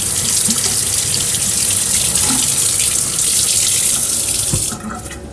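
Kitchen sink tap running as hands are washed under it, a steady splashing hiss that shuts off suddenly near the end.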